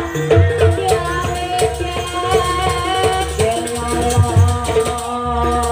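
Live jaranan accompaniment music: repeated drum strokes and low booms under rattling percussion, with a high, wavering melody line held over them.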